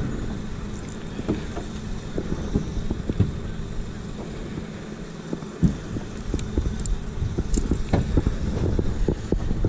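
Steady low rumble with scattered light knocks and clicks as a caught catfish is handled and unhooked in an aluminium boat. The loudest is a single thump about five and a half seconds in.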